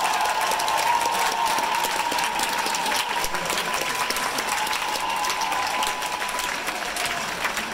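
A theatre audience applauding a curtain call: dense, steady clapping from many hands. A long held high tone from the crowd sounds over the clapping and fades out about six and a half seconds in.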